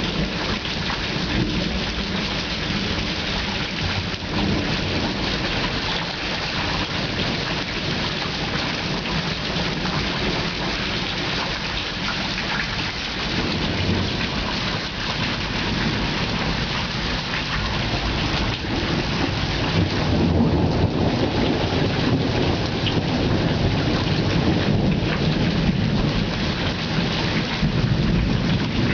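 Steady rain falling during a thunderstorm, with thunder rumbling. The rumble grows louder in the second half.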